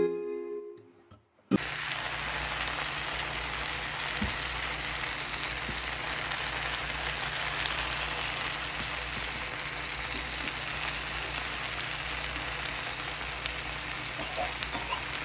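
Tilapia fillets frying in a skillet with tomato, chile and onion, a steady sizzle with light crackling that starts about a second and a half in.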